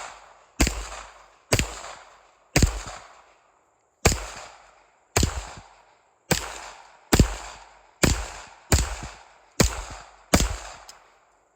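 Semi-automatic firearm fired from a 30-round magazine: about eleven single shots at roughly one a second, each cracking sharply and ringing out briefly.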